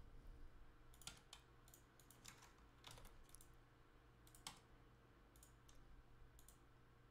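Faint, scattered clicks of a computer mouse and keyboard, about ten over several seconds, over a faint steady hum.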